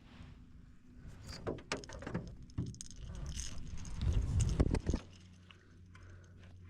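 Clicks, knocks and rattling of fishing gear being handled in a boat, with a loud low rumble near the end that stops suddenly, over a steady low hum.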